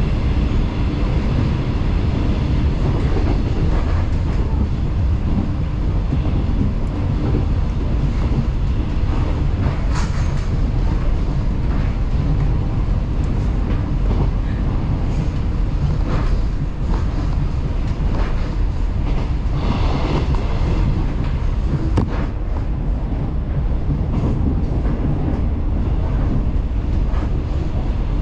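Taiwan Railways local electric train running along the line: a steady low rumble with a few sharp clicks now and then.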